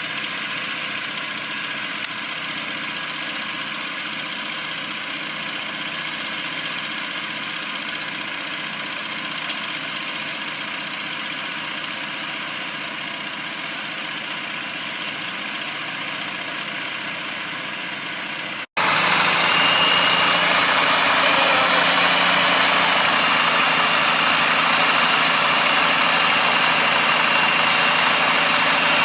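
Engine running steadily at idle. About two-thirds of the way through, the sound cuts suddenly to a louder, rougher engine run with a thin high whine over it.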